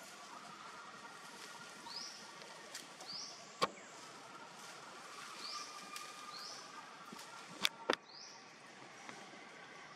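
A bird gives a short, quickly rising chirp five times over faint outdoor background. Three sharp snaps are the loudest sounds: one a few seconds in and a quick pair near the end.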